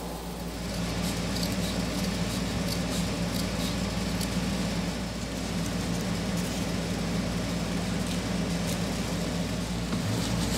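Steady low machine hum, with faint scattered rustles and ticks as carpet is pressed and tucked into place.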